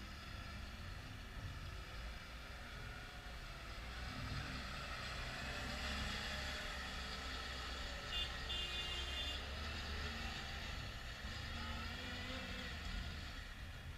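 Caterpillar 938K wheel loader's diesel engine running as the machine drives past, growing louder as it comes closest about six seconds in and then fading as it moves away. A brief high-pitched tone sounds about eight seconds in.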